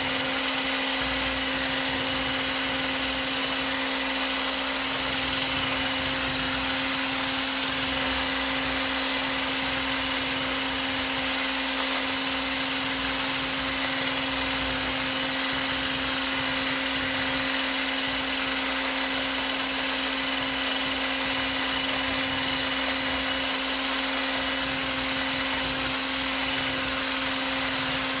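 Handheld electric mixer running steadily with a constant motor whine, its whisk beating a thin lotion mixture in a stainless steel bowl to thicken it.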